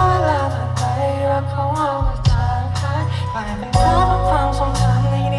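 Live band playing a pop-rock song, with drums, bass and a gliding melodic line.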